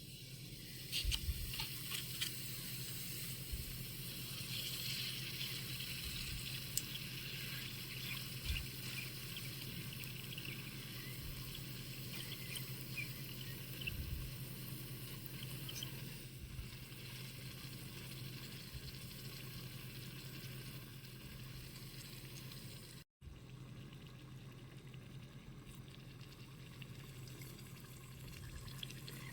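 Hot oil sizzling and crackling as puris fry in a small pan, with a few soft knocks. The sound cuts out for a moment about three-quarters of the way through.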